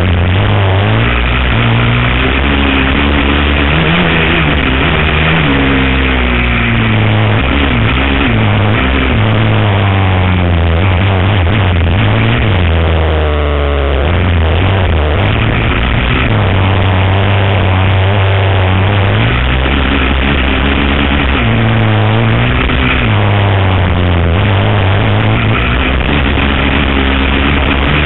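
Suzuki LTR450 sport quad's single-cylinder four-stroke engine heard from on board at speed, its pitch repeatedly climbing and dropping as it revs through the gears and backs off, with a sharp rev and fall about halfway through. Wind rush on the microphone runs underneath.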